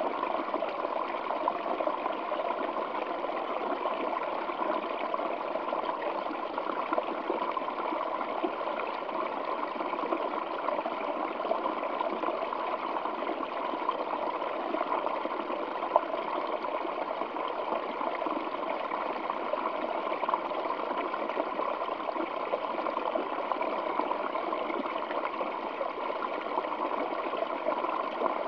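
Waterfall flowing over rocks: a steady, even rush of falling water.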